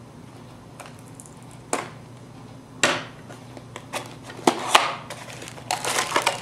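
Plastic packaging being handled: separate sharp crinkles and clicks of a plastic bag, the loudest about three seconds and four and a half seconds in, with a quick run of them near the end.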